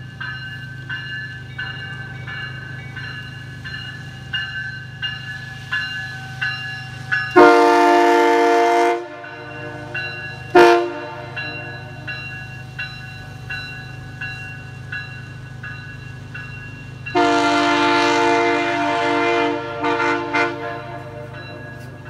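Nathan Airchime K3HA three-chime locomotive air horn sounding a chord: a long blast about seven seconds in, a short toot, then a longer blast near the end followed by a few quick toots. A steady low hum and faint regular ticking run underneath.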